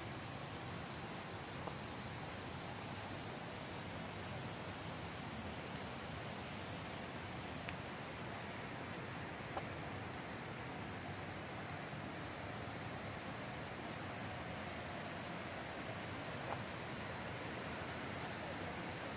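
Insects droning: one steady, high-pitched, unbroken buzz over a faint background hiss, with a few soft ticks.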